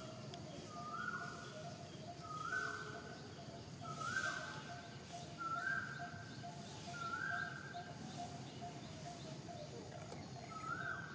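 A bird calling over and over: a short note that steps up in pitch, about every second and a half, with a pause of a few seconds before the last call near the end.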